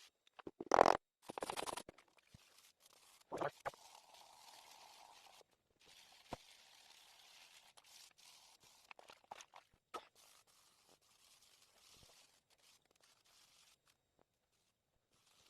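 A brush scrubbing carbon off a used two-stroke piston at a sink: short bursts of scrubbing and scraping, with scattered small clicks and knocks. The loudest burst comes about a second in, with softer stretches of steady scrubbing later.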